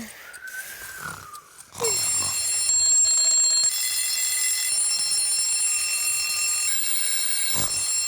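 Several cartoon alarm clocks ringing together, a shrill steady ringing in several pitches that starts suddenly about two seconds in; some clocks drop out while the rest keep ringing. Before that, a few soft sliding tones.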